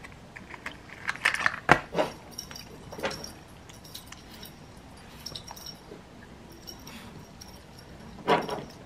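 Small clicks, clinks and knocks of objects being handled up close, scattered and irregular, thickest in the first few seconds. A short, louder sound comes near the end.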